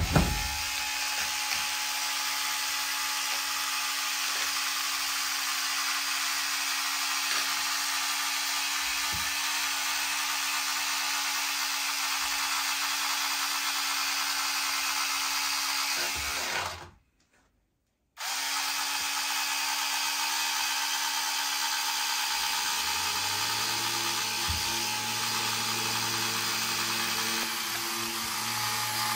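Handheld cordless electric fabric cutter running with a steady whine while it trims kevlar-carbon cloth. It cuts out completely for about a second around two-thirds of the way through, then runs again, with a lower hum joining near the end.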